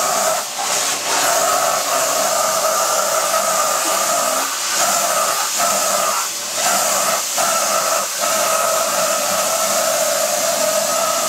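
Vacuum cleaner running steadily with a motor whine and air hiss, the sound briefly dipping several times in the middle as the nozzle is pressed against an animal's coat.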